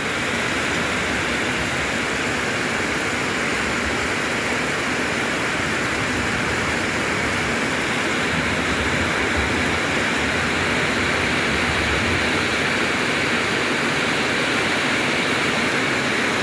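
Heavy tropical downpour: a steady, dense hiss of rain pouring onto trees, leaves and sodden ground.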